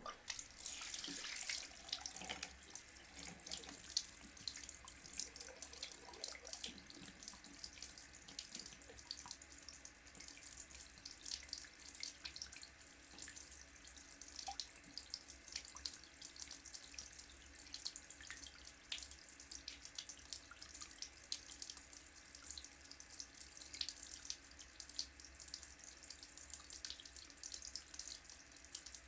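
Tap running steadily into a wash-hand basin with the plug out, the water splashing on the basin and draining away.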